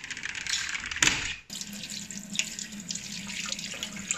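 Tap water running into a sink and splashing over a hand rinsing fresh basil leaves. A sharp knock comes about a second in, just before the steady flow.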